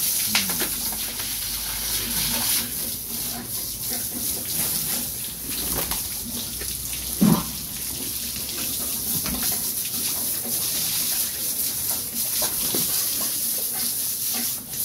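Water spraying from a hose onto pigs and a wet concrete pen floor, a steady hiss. A pig gives a short loud grunt about seven seconds in.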